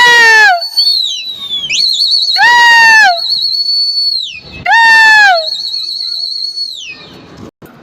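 A pigeon keeper's shrill whistling to call his flying pigeons: one long, high, warbling whistle held for about seven seconds, with three loud falling whistle-calls over it, about two and a half seconds apart.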